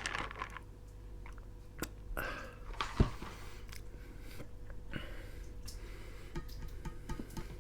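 Close-miked eating: chewing and biting food, with wet mouth clicks and small crunches. There is one sharp knock about three seconds in.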